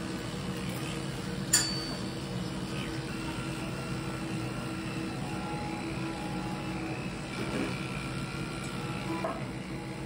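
Cordless electric dog clipper running with a steady hum as it shaves a bichon frise's coat down short. A single sharp click about a second and a half in.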